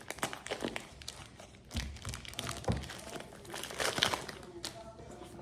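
Packaging crinkling and rustling as a product box is unpacked by hand, with a few light knocks among the irregular rustles.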